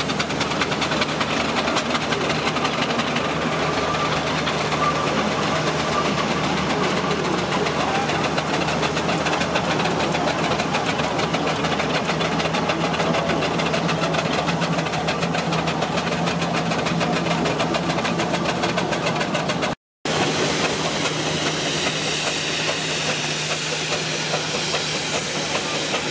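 Steam traction engines working under load hauling a timber trailer: a fast, even chuff of exhaust beats with the hiss of steam. The sound cuts out for a moment near the end, then another steam engine is heard working.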